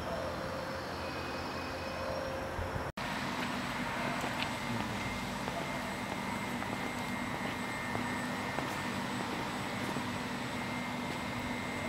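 ED250 Pendolino electric train creeping slowly along the platform, its electrical equipment giving a steady hum with a high whine. About three seconds in the sound breaks off for an instant; before that, a fainter steady background drone.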